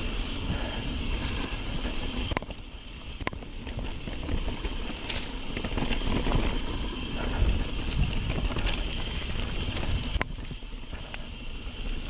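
Mountain bike riding fast down a dirt singletrack: knobby tyres rolling over dirt and leaves and the bike rattling over bumps, with a few sharp knocks and a constant low rumble.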